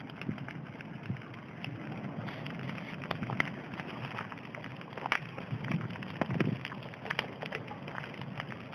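Bonfire burning, with irregular sharp crackles and pops over a steady hiss.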